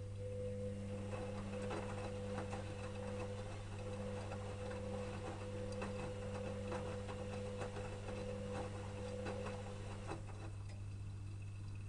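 Electrolux EWS 1045 washing machine turning its drum during the wash: a steady motor hum with many light clicks and knocks from the tumbling load, stopping about ten seconds in as the drum comes to rest, leaving only a low steady hum.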